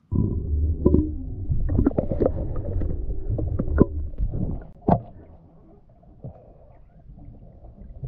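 Muffled underwater noise as heard by a submerged camera: a loud low rumble with several sharp knocks, which cuts in suddenly and drops to a faint wash about five seconds in.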